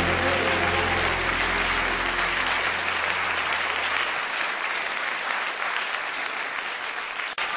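The backing music fades out over the first few seconds, leaving a steady rushing hiss of outdoor sound from the camcorder's own microphone. The hiss cuts off abruptly just before the music comes back.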